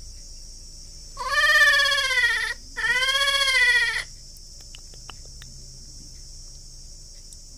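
Infant vervet monkey giving two drawn-out, high-pitched calls about a second long each, a short break between them, each call rising then falling in pitch: an orphaned baby calling out for its mother. A steady high insect hiss runs underneath.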